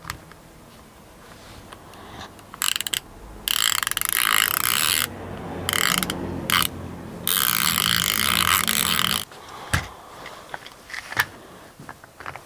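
A screwdriver backing the screws out of a Hoyt Puck remote's case: a dense mechanical whirring in three runs, starting and stopping abruptly, with a few sharp clicks near the end.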